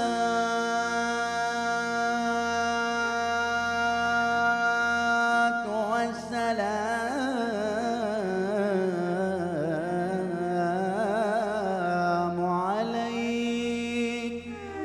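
A man sings an Egyptian religious inshad solo into a microphone. He holds a long note, then moves into wavering, ornamented melismatic runs about six seconds in, and settles on another held note near the end, over a soft sustained accompaniment.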